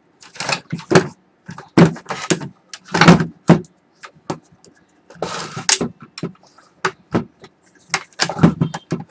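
The plastic casing of a 600VA UPS being handled: a run of knocks and clunks as the opened cover and case are moved about, with a longer scrape about five seconds in.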